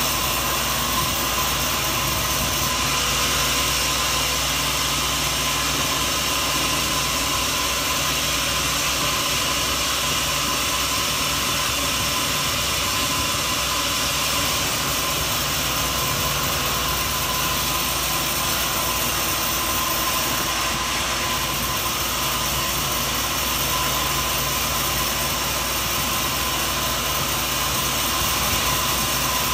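Sawmill machinery running steadily, an even mechanical drone with a faint steady whine.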